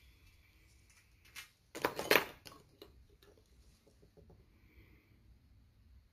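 A brief, loud crackle and clatter about two seconds in, from a paint tube being handled and set down, followed by a few faint light ticks.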